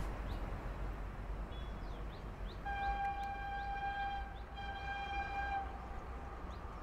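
Electric locomotive horn of an approaching Shatabdi Express, heard at a distance in two steady blasts: the first nearly two seconds long, the second about a second. A low steady rumble runs underneath.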